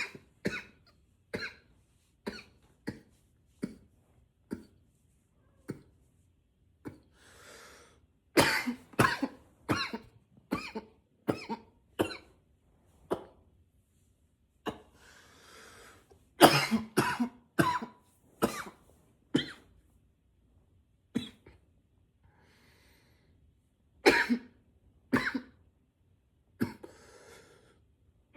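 A man coughing over and over in short, sharp coughs, some single and some in quick runs of several, with breaths drawn in between the spells.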